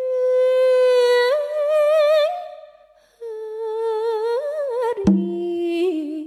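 Sundanese kawih singing: a high solo voice holds long, ornamented notes with a wavering vibrato, breaks off briefly near the middle, then resumes. A single struck percussion stroke with a short low ring sounds about five seconds in.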